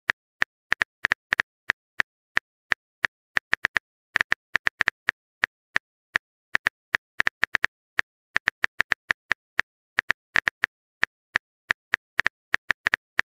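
Phone keyboard tap sound effect: a long run of short, sharp clicks at an uneven pace, about four a second, as a text message is typed out.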